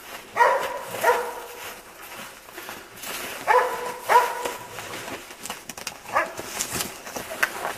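Hunting dogs baying at a wild boar: two pairs of long barks, then several shorter barks near the end.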